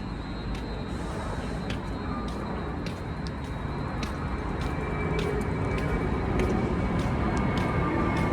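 Caltrain passenger train arriving: a steady low rumble that slowly grows louder, with a string of sharp clicks about every half-second. A faint high steady tone comes in about five seconds in.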